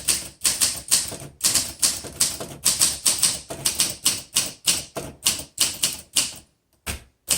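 Typing on a 1959 Olympia SM3 manual typewriter: a quick, steady run of sharp keystrokes, about four or five a second. The typing stops about six seconds in, followed by a couple of single strikes near the end.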